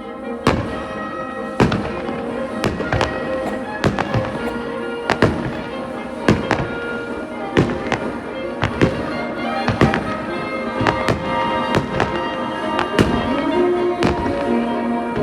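Fireworks shells bursting in a rapid series, a sharp bang about every half-second to a second, over loud music played along with the display.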